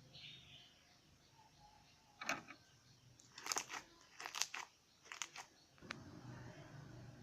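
Several quick clusters of sharp clicks and crackles, about a second apart, followed by a faint low hum.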